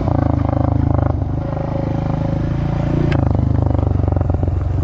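Honda dirt bike engine running under throttle as it rides across a field. The revs pick up at the start, ease off about a second in, and build again about three seconds in.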